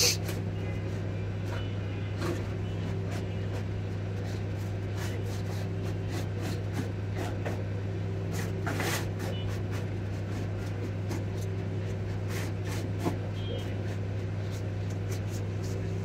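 Steady low electrical hum from the repair bench, with faint scattered clicks and taps as a laptop motherboard is handled under a microscope.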